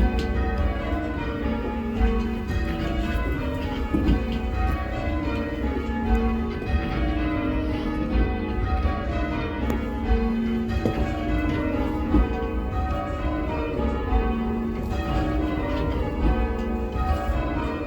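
Ring of eight church bells, mostly cast in 1694 with later 18th-century bells, rung full-circle in rounds, one bell after another in an unbroken, steady succession. Their tone is a tad shrill and dry.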